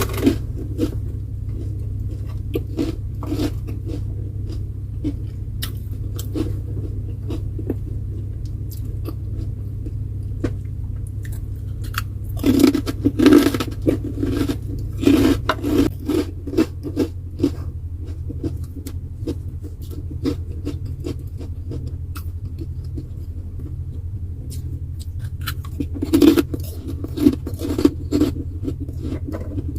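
Close-up chewing, biting and crunching of food, in two louder bouts about twelve seconds in and again near the end, over a steady low hum.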